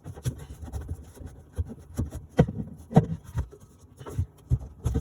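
Irregular knocks, clicks and scraping of hands handling plumbing fittings and pipes under a sink, with several sharper knocks around the middle.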